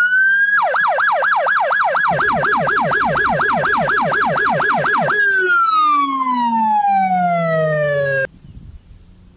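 Police car electronic siren on an ex-police Ford Taurus Police Interceptor. It starts in a rising wail, then switches to a fast yelp of about five sweeps a second, with a lower-pitched second tone joining about two seconds in. It then winds down in a long falling tone and cuts off suddenly.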